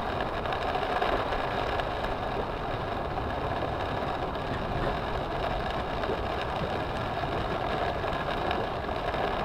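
A car's engine running steadily under load as it ploughs through deep floodwater, with a constant rushing wash of water against the body and windshield, heard from inside the cabin.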